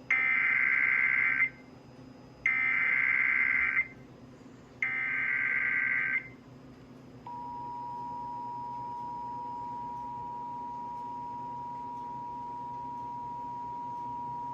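Emergency Alert System required monthly test: three bursts of SAME header data, each a loud rapid digital warble of about a second and a half, with short gaps between them. About seven seconds in, the steady two-tone EAS attention signal (853 and 960 Hz) starts and holds.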